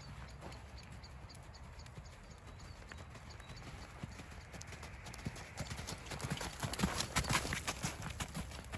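Hoofbeats of a ridden horse cantering on a sandy arena surface dusted with snow, a steady rhythm of dull thuds that grows louder about six seconds in as the horse comes close.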